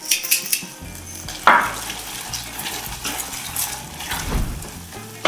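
Silicone spatula stirring and scraping thick cheese sauce around a stainless steel saucepan, in a run of irregular strokes over a steady hiss. The sauce is thickening to the point of catching slightly on the bottom.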